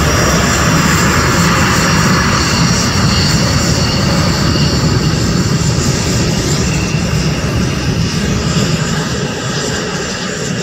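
Lockheed F-117 Nighthawk taxiing past on its two General Electric F404 turbofan engines: loud, steady jet noise with a high whine over it, easing off a little near the end as the jet moves away.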